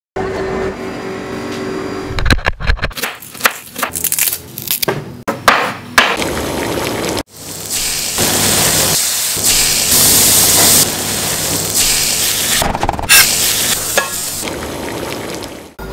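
Kitchen cooking sounds: a run of sharp clinks and scrapes of utensils against a steel pot, then, from about seven seconds in, a steady sizzle of butter in a hot stainless pot, with a few scrapes of a spoon stirring the sauce near the end.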